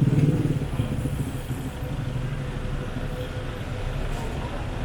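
City street traffic: a motor vehicle's engine running close by at first, fading about a second in, then a steady low traffic rumble.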